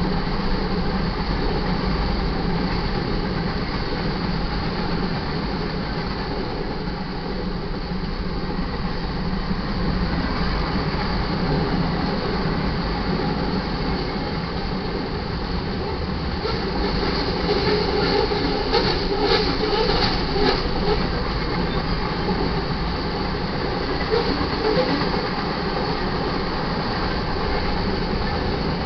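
Freight cars of a manifest train rolling past close by: a steady rumble and rattle of steel wheels on rail. A spell of louder, sharper clatter comes about two-thirds of the way through.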